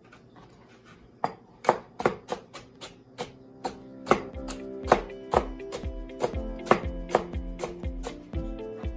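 A long kitchen knife chopping cucumber into julienne strips on a plastic cutting board, with sharp strokes every half second or so starting about a second in. Background music comes in about halfway through.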